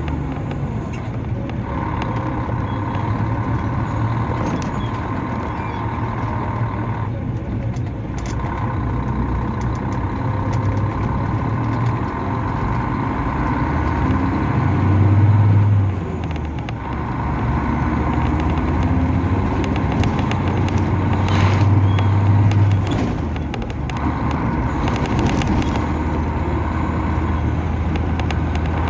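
Mercedes-Benz O500-RS coach's 354 hp diesel engine running under way, heard from inside the coach. The engine note grows louder about halfway through and again later on, with brief drops in between, as the load and revs change.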